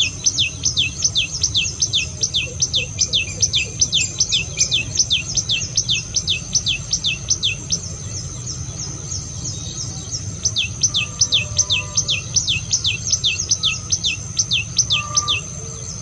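Common tailorbird singing: a fast run of sharp notes, each dropping in pitch, about four a second, in two bouts with a pause of a few seconds between them. A steady high whine runs underneath.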